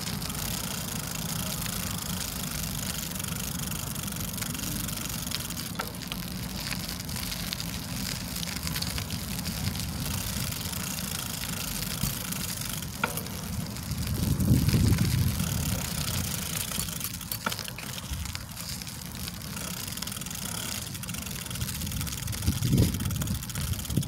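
Riding noise from a KhVZ Sputnik bicycle rolling over rough, cracked asphalt: a steady low rumble with hiss, broken by a few sharp clicks from bumps. The rumble swells louder twice, about 14 seconds in and near the end.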